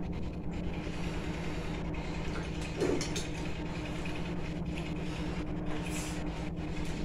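A steady mechanical hum holding a few constant tones, with small soft sounds of fingers mixing rice on a plate.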